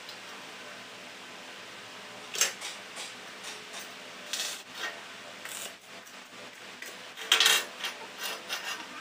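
Irregular metallic knocks and scrapes of steel pipe and hand tools on a steel welding table, from a hammer knocking at a freshly welded pipe and the pipe being handled. A few sharp strikes stand out, one about two and a half seconds in and a cluster around seven and a half seconds.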